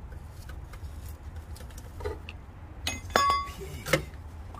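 A few light metallic knocks and clinks as the stamped steel lower oil pan is handled and worked free of the engine; the loudest clink, about three seconds in, rings briefly.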